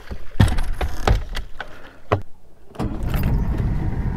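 Knocks and clatter on a fiberglass bass boat's deck, then about three seconds in a steady low rumble starts as the boat's outboard motor gets under way.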